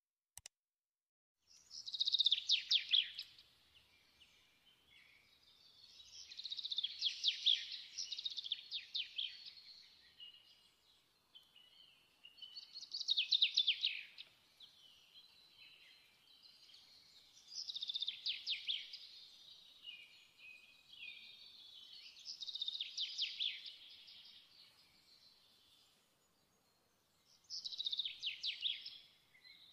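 Songbird singing: fast trilled phrases of high notes about every five seconds, with softer twittering between them.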